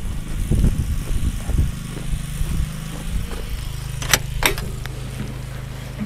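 Petrol generator running with a steady low hum that becomes clear a few seconds in. Footsteps in snow sound at first, and two sharp clicks come about four seconds in.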